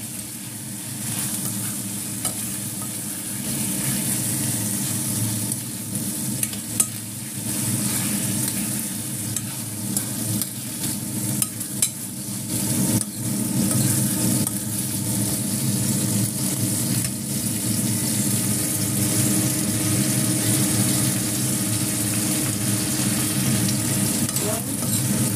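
Marinated chicken pieces sizzling steadily as they fry in a stainless steel pan, stirred with a spoon that clicks sharply against the pan a few times.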